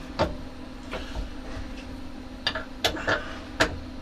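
Scattered sharp clicks and taps of small metal parts, screws and fittings, being handled and set on a rotary-axis chuck assembly.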